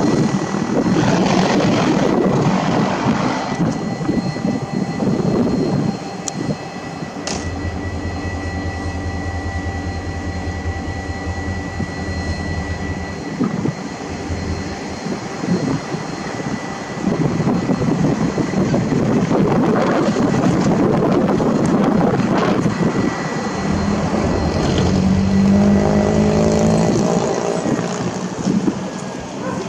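Diesel locomotive engine running with a low, steady drone as SSR RL304 moves a ballast train slowly along, with heavy wind gusting on the microphone.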